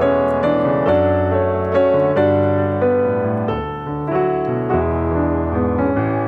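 Background piano music: a slow melody over held bass notes that change every second or two.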